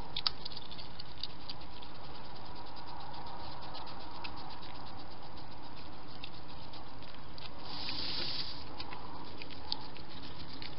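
Wild hedgehog moving about on paving stones: a scatter of small clicks and scratches from its feet and snout, with a short rustling burst about eight seconds in.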